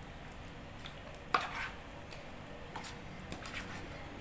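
A spoon stirring raw chicken pieces coated in marinade inside a plastic container. There are a few light clicks and scrapes against the bowl, with one sharper knock about a second and a half in.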